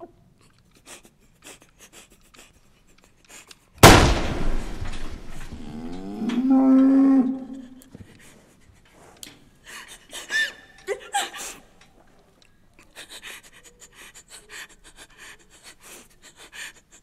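A single revolver shot that rings on as it dies away over a couple of seconds. Shortly after it, a cow moos once, the call rising and then holding for a second or two.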